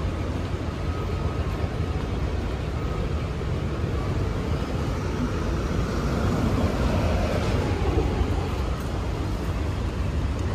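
City street traffic: a steady low rumble of passing vehicles, swelling a little about seven seconds in as one passes closer.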